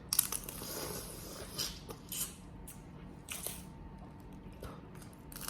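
Close-up eating of boiled crawfish: a run of clicks and crackling in the first second or so as shells are broken, then several short wet smacks and sucks.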